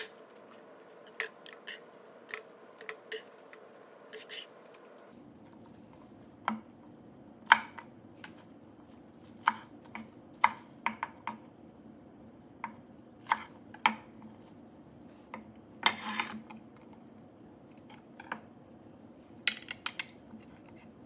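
Chef's knife knocking on a wooden cutting board in scattered, irregular strokes as green onions are cut, mixed with light clinks of vegetables being set on a ceramic platter. A longer scraping sound comes about two-thirds of the way through.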